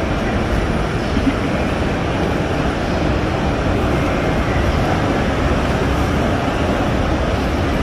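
Steady, even rushing noise with no distinct events, filling the large prayer hall.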